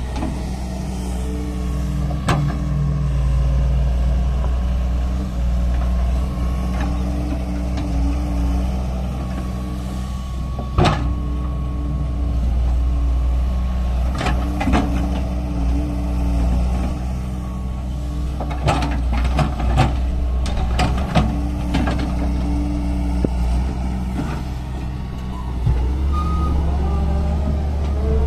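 Doosan wheeled excavator's diesel engine running steadily as the machine digs, its note shifting as it works. Sharp metallic clanks and knocks come now and then, with a cluster about two-thirds of the way through.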